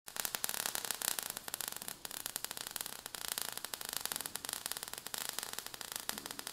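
Sound effect of sparks crackling and fizzing: a dense, irregular run of small crackles.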